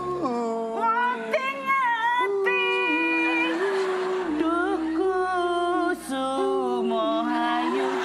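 A single voice singing a slow Javanese song with no instruments, holding long notes that step up and down in pitch.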